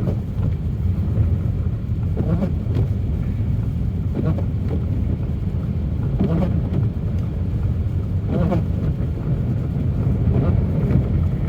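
Steady low rumble of a car driving on a snow-covered road, heard from inside the cabin: engine and tyre noise, with a few short, fainter sounds over it.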